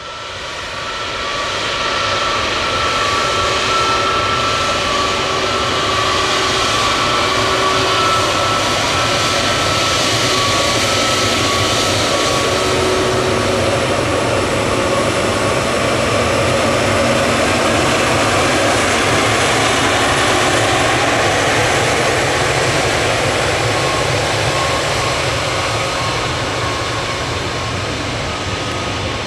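Jet airliner's engines running loud and close: a steady rush of noise with whining tones, some sliding lower in pitch about halfway through. It swells up over the first couple of seconds and eases off a little near the end.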